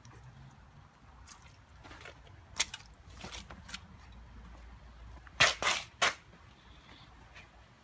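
Footsteps of sneakers on wet concrete and gravel: a few scattered scuffs and taps, then three sharp, loud steps in quick succession a little past the middle.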